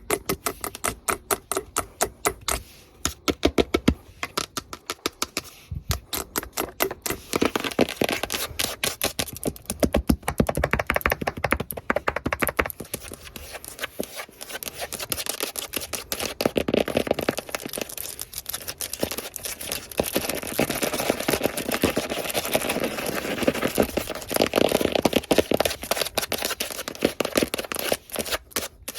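Long fingernails tapping fast on hard surfaces, many clicks a second. From about seven seconds in, rougher stretches of nail scratching run between the taps.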